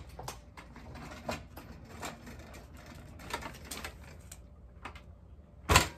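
Irregular light clicks and knocks from handling a gas pressure washer on concrete, with one loud sharp knock near the end. The engine is not running.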